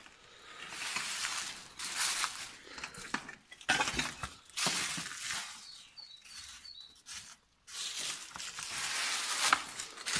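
Debris crunching and scraping in irregular bursts, with a few sharper knocks and a short lull about seven and a half seconds in.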